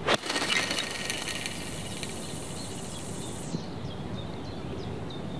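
A golf iron strikes the tethered ball with a sharp click, then fishing line pays off the fishing reel in a fast, high whir as the ball flies. The whir thins out after about three seconds and runs on more faintly until it stops near the end.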